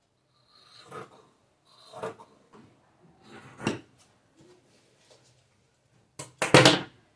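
Large tailor's shears cutting through thin cotton fabric in three short strokes, then the metal shears put down on a wooden table with a loud clack near the end.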